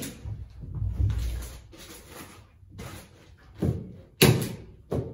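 Kraft-faced fiberglass insulation batt being handled and pressed into a stud wall cavity: crinkling and rustling of the paper facing, broken by several sharp knocks, the loudest about four seconds in.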